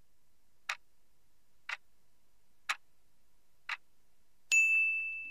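Countdown timer sound effect: a clock tick once a second, four times, then a bright ding about four and a half seconds in that rings on and fades, marking the end of the answer time.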